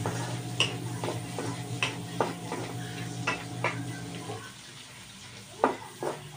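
Meat sizzling in a wok while a wooden spatula stirs it, scraping and tapping against the pan every half second or so, with one louder knock near the end. A steady low hum underneath stops about four seconds in.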